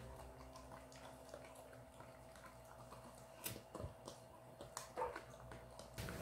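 Faint chewing of dogs gnawing raw duck backbone, with a few short sharp cracks of bone in the second half.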